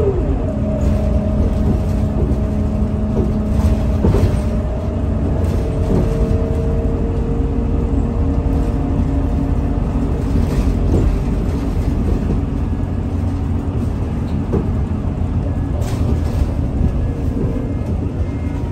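Scania L94UB city bus heard from inside the cabin while under way: a steady diesel engine drone and road rumble. A whining tone shifts in pitch a few times, and short rattles come and go.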